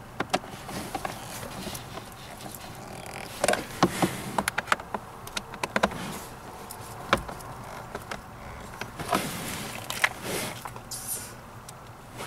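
Screwdriver undoing screws in plastic under-dash trim: irregular sharp clicks and ticks with short scrapes of metal on plastic.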